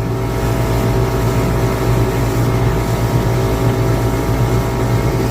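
Motorboat engine running at a steady speed while underway, a constant hum with a strong low drone and an even rush of noise above it.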